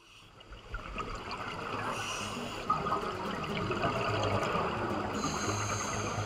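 Underwater bubbling and crackle of scuba divers' exhaled air from their regulators, fading in over the first second and then holding steady.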